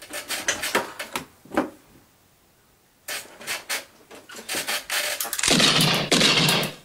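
Knocks, thumps and rustling from a staged tussle with a hand puppet, then a loud harsh burst of noise lasting just over a second near the end, as a pistol is aimed downward.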